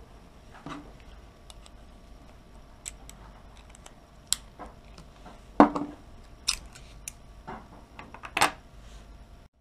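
Small steel magnet plates from a hard drive's head actuator clicking and snapping against each other as they are handled and separated by hand. It is a scattered series of sharp metallic clicks, with the loudest about halfway through and another near the end.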